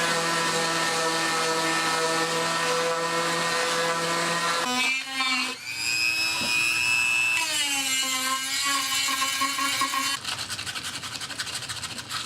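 Electric woodworking router running, its motor pitch shifting and dropping several times as the bit cuts into the wood. About ten seconds in, it gives way to a fast rhythmic rubbing on wood, like sanding.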